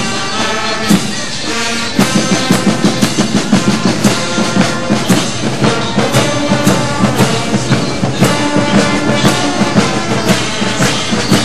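Carnival brass band playing in the street: trumpets and a tuba over drums keeping a steady march beat. The beat grows stronger about two seconds in.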